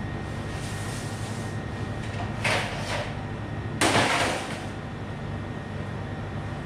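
Metal baking tray scraping and sliding on a stainless steel work table twice: a short scrape a little over two seconds in, then a louder one that starts sharply about four seconds in. A steady machine hum runs underneath.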